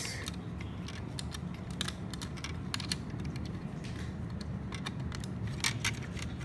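LEGO plastic bricks clicking and tapping as fingers handle and fit small pieces, scattered light clicks with a quick cluster of louder ones near the end.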